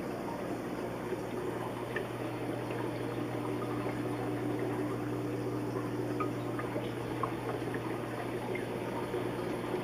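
Aquarium water trickling and bubbling steadily over a steady low motor hum from the tank's filter or pump, with a few faint pops.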